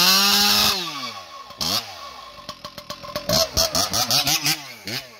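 Husqvarna 585 XP two-stroke chainsaw fitted with an expansion chamber exhaust pipe, revved in free air. A held high rev at the start falls away, then comes a series of quick throttle blips, each rising and falling in pitch.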